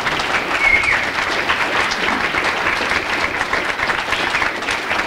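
An audience applauding, a dense steady clatter of many hands clapping, with a short high tone about half a second in.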